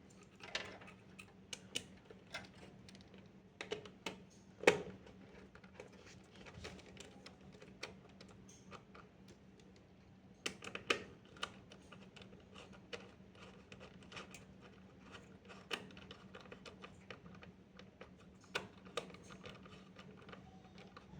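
Scattered small clicks and taps of a Zebronics NVMe SSD being fitted by hand into a motherboard M.2 slot, with one sharper knock about four and a half seconds in.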